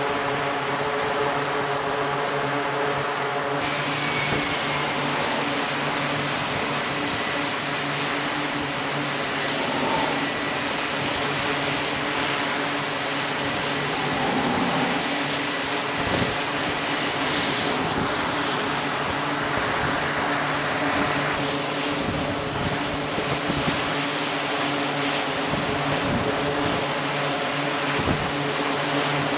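Jet engines of F/A-18 Super Hornet strike fighters running on a carrier flight deck: a loud, steady jet noise with several constant whining tones over it. The sound shifts abruptly about four seconds in and again about twenty-one seconds in.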